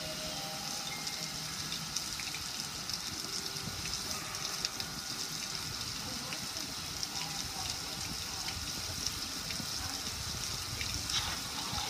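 Water gushing and splashing steadily as it pours off the lid of a gas grill and streams down over its control panel.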